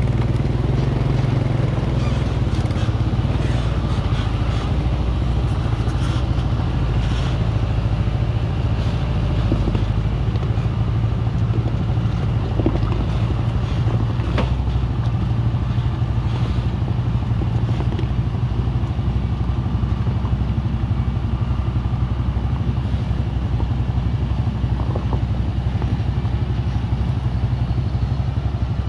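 Vehicle engine running steadily, a low drone that holds an even level throughout, with a few faint clicks and rattles.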